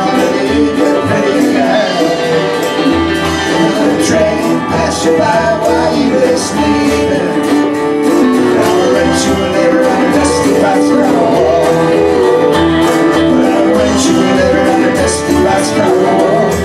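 Live folk band playing: violin over acoustic and electric guitars, with hand drums and percussion keeping a steady beat.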